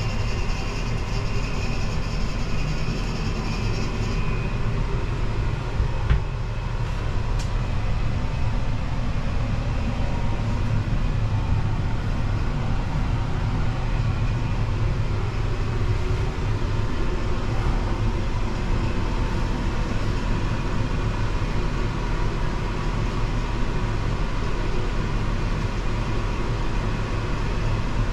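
Steady low machine hum heard inside an enclosed gondola of La Grande Roue de Montréal Ferris wheel as it turns, with a faint high whine that stops about four seconds in.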